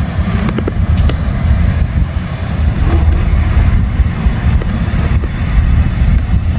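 Low rumble of wind buffeting the microphone over the fading sound of a receding freight train's last cars, with a few faint clicks about half a second to a second in.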